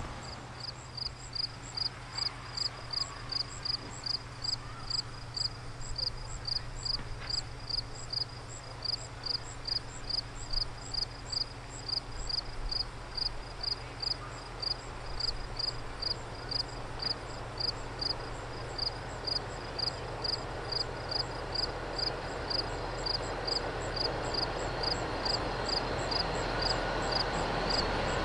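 Train approaching: a low rumble that grows steadily louder through the second half, over a steady high-pitched pulsing about twice a second.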